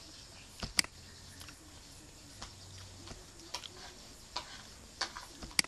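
A few sharp single clicks of a computer mouse, the loudest about a second in and another just before the end, with fainter clicks in between.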